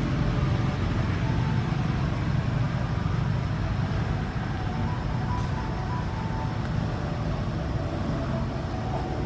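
Steady low rumbling background noise, with a few faint short high tones now and then.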